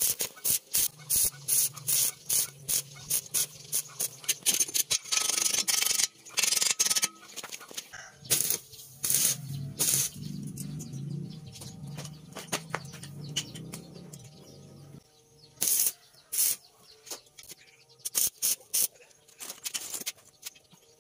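Stick welding on steel brake shoes: the arc crackles and spits in short sharp bursts, about two a second at first, then in longer runs as tack welds are struck, with a low steady hum under it for most of the time.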